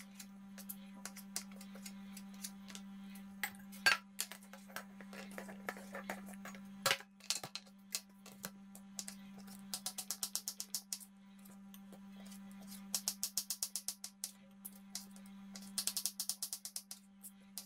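Kitchen knife chopping on a plastic cutting board, dicing boiled chicken and then boiled carrot, in quick runs of taps several a second, with soft background music underneath.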